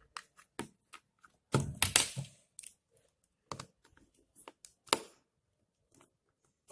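Small clicks and taps of a mobile phone's plastic parts and tiny screws being handled during disassembly. There is a louder clatter about one and a half seconds in and a sharp tap near five seconds.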